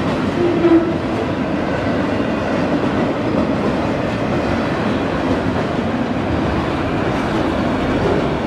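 HO-scale model freight cars rolling past on the track: a steady rumble and rattle of the small wheels on the rails.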